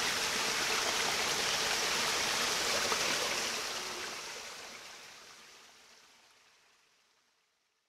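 Small waterfall splashing into a rock pool, a steady rush of water that fades out from about three seconds in to silence.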